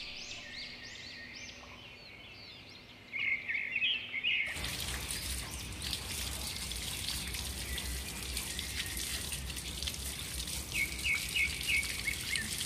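Birds chirping in a repeated pattern. About four seconds in, water from a garden hose starts splashing steadily over a hand onto pebbles, and more short chirps come near the end.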